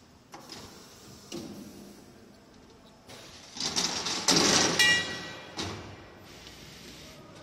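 Cut steel tube pieces being moved off the laser tube cutter's automatic unloading supports, sliding and clattering onto the steel unloading table. Two light knocks come first, then a loud scraping clatter with a brief metallic ring, then one last knock.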